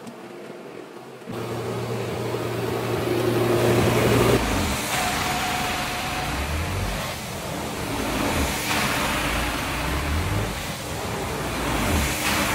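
A carpet scrubbing machine hums quietly at first; about a second in, the loud rushing suction of a hot-water extraction wand takes over, rising and falling every second or two as the wand is drawn across the wet carpet to pull the solution and soiled water out.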